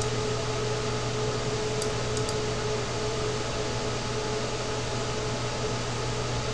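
Steady fan-like hum and hiss of room noise, with a low hum and a faint steady tone running under it; a couple of faint high ticks about two seconds in.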